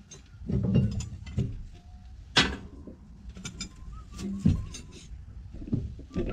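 Workshop clanks, clicks and knocks of tools and metal parts being handled while a tractor loader's hydraulic control valve is dismantled. One sharp metallic strike about two and a half seconds in is the loudest.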